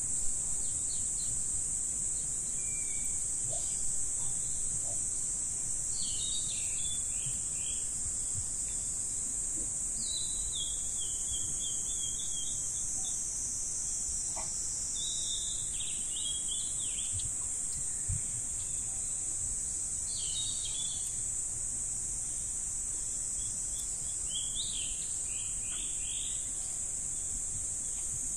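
A steady, high-pitched drone of insects, with short bursts of bird chirps breaking in every few seconds.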